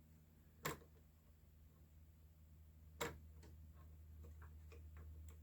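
Two sharp clicks about two seconds apart, then a few faint ticks, over a low steady hum: small parts being handled inside an opened slide projector.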